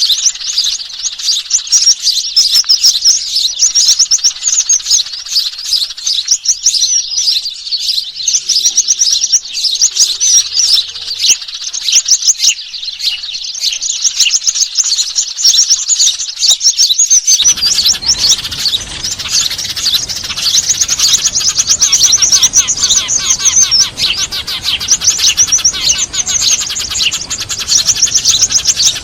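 A loud, dense chorus of small songbirds chirping and trilling in rapid, high-pitched runs without pause, a bird-lure recording. About seventeen seconds in, a steady low background hiss joins under the chirping.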